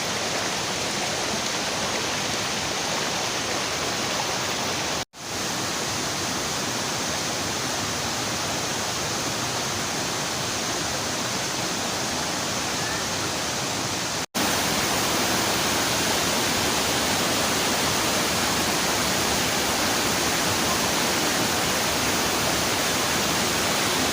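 Waterfall and river water rushing, a steady, even wash of noise. It cuts out for an instant twice, about five and about fourteen seconds in, and is a little louder after the second break.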